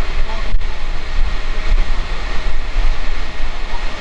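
Turbine engine of a radio-controlled model jet running, a loud steady rush of noise with a deep rumble underneath. One short sharp click about half a second in.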